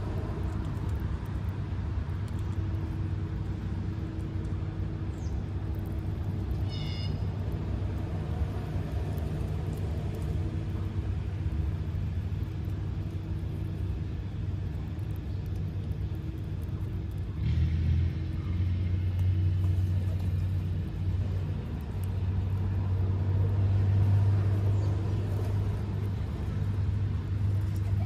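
Low, steady rumble of motor traffic, growing louder about two-thirds of the way through. A brief high call is heard about seven seconds in.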